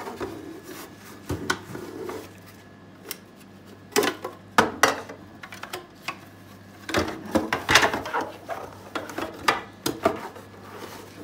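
Soapy sponge scrubbing the clear plastic water tank of an Arçelik Telve coffee machine, with knocks and clatter as the tank is turned over in the hands. The busiest bursts of scrubbing and knocking come about four seconds in and again about seven to eight seconds in.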